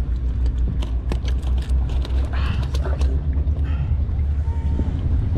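A steady low rumble, with several sharp clicks and a rustle in the middle as fishing pliers and a backpack are handled.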